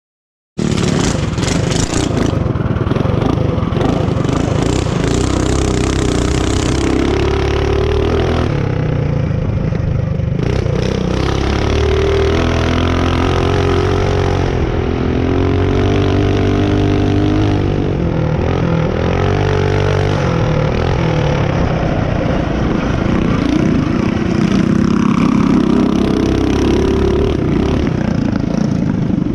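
Mini bike engine running under throttle, heard from on the bike, its pitch rising and falling as the rider speeds up and eases off. It cuts in suddenly about half a second in.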